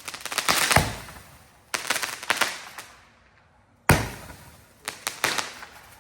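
Fireworks going off: four volleys of rapid sharp bangs and crackles, each dying away before the next.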